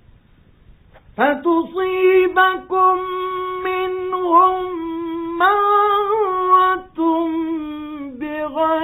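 A Quran reciter's high male voice chanting in the melodic mujawwad style, holding long notes with ornamented turns. It starts about a second in after a moment of faint hiss and breaks off briefly twice. The recording is an old, narrow-band radio recording.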